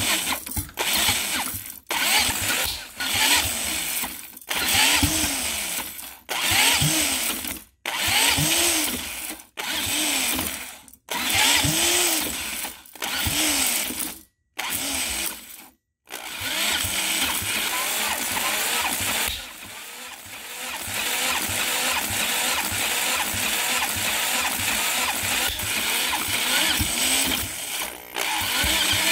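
See-through Briggs & Stratton single-cylinder engine on fuel injection being cranked over through its crankshaft nut. For the first half it is cranked in short bursts of about a second, each spooling up and down; after that it cranks continuously with one brief dip. The engine fires now and then without catching, which the owner puts down to its ignition timing being off.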